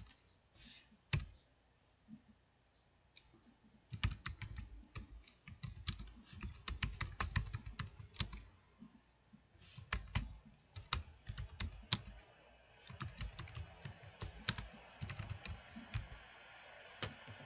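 Typing on a computer keyboard: runs of quick key clicks with short pauses between them, after a few scattered clicks at the start.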